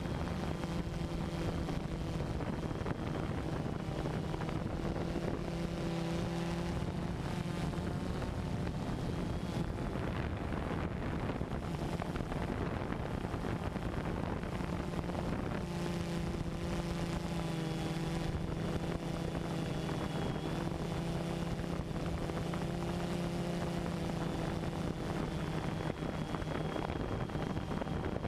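Multirotor drone's electric motors and propellers humming steadily, picked up by the onboard camera, with wind noise on the microphone. The pitch of the hum shifts slightly as the motors change speed, and it grows less distinct for a few seconds in the middle.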